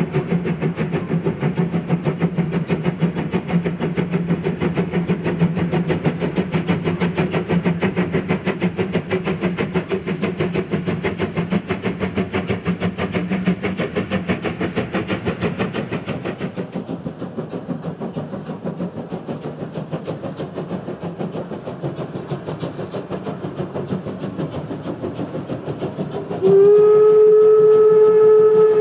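Deutsche Reichsbahn class 35 steam locomotive 35 1097-1 working hard up a steep grade, its exhaust beats fast and even. About two seconds before the end, its steam whistle starts a long, steady, loud blast.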